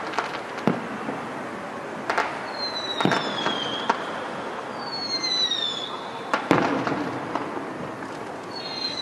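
Distant aerial fireworks bursting, with scattered booms that echo, the strongest about six seconds in. A few high, falling whistles sound among the bursts.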